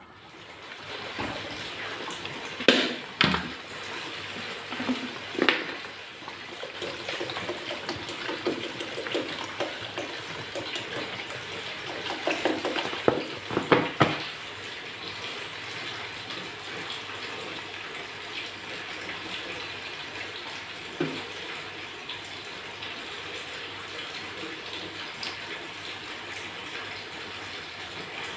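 Milk with carrots and rice simmering in a pan, a steady bubbling hiss. Clinks and knocks of the steel lid and a stirring spatula against the pan come a few times early on and in a cluster near the middle.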